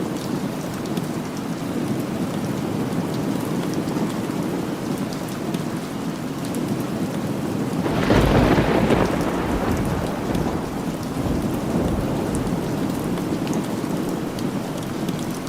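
Steady rain falling, with a clap of thunder about halfway through that breaks suddenly and rumbles away over a couple of seconds.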